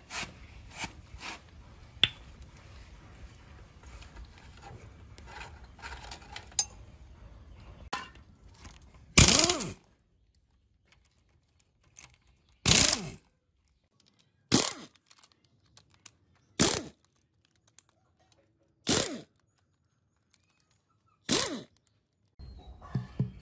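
Scattered light metal clicks and knocks, then six short bursts of a power wrench spinning out the bolts of an old Yanmar S13 CE engine's gear cover, each lasting about half a second, roughly two seconds apart.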